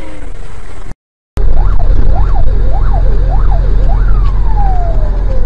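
Siren wailing in quick rising-and-falling sweeps, a little over one a second, ending about four seconds in with one long falling tone. It sounds over a loud low rumble and stops briefly for a moment of silence about a second in.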